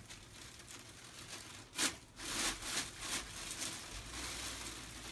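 Thin plastic bag crinkling and rustling in short, faint spells, starting with a sharp crackle about two seconds in, as a cat noses and pushes its head into it.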